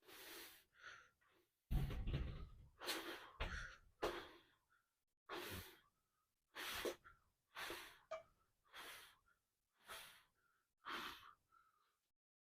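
A man breathing hard in short, sharp breaths, roughly one a second, as he braces through a set of heavy barbell squats, with a heavier low rumble about two seconds in. The breathing cuts off abruptly near the end.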